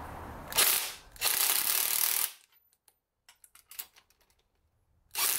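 Cordless power tool running in two short bursts, a brief one and then one of about a second, as it drives the threaded screws of clamp-type spring compressors to compress a MacPherson strut's coil spring evenly; a few faint clicks and taps follow, and another burst starts near the end.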